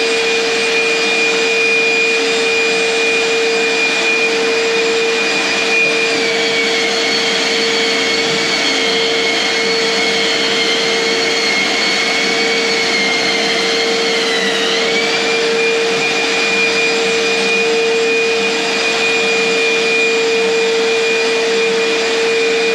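Long-reach 'giraffe' drywall sander and its dust-extraction vacuum running continuously while sanding plaster walls, a loud steady motor whine. The higher-pitched motor tone sags slightly for several seconds in the middle, then comes back up.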